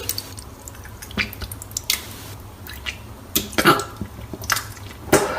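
Person vomiting: wet retching and gulping noises with liquid splattering, coming in short scattered bouts over a low steady hum.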